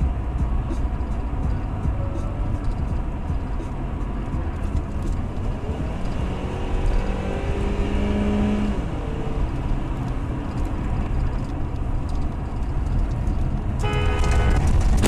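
Steady road and engine noise of a car at city-highway speed, heard from inside the cabin. About a second before the end, a steady pitched tone with several overtones starts.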